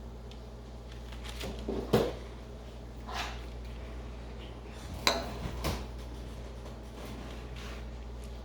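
A few separate knocks and clinks of a utensil against a baking pan as biscuit dough is dropped onto it. The loudest come about two seconds in and about five seconds in, over a steady low hum.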